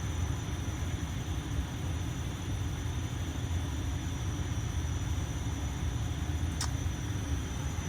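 Steady low rumble of background room noise with a faint, steady high-pitched tone, and one short click about six and a half seconds in; no alarm horn is sounding.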